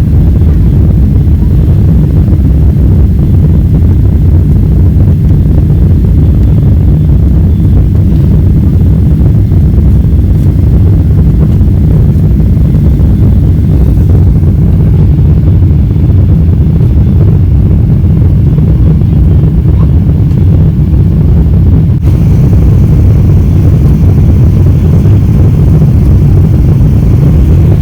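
Jet airliner cabin noise: a loud, steady low rumble of engines and rushing air heard from inside the passenger cabin.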